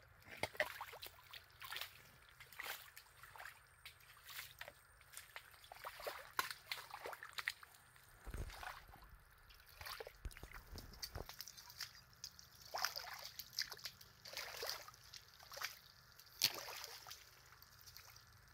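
Wet mud and shallow water squelching and splashing in irregular short bursts of sound as a metal crab hook is worked into a mud crab burrow.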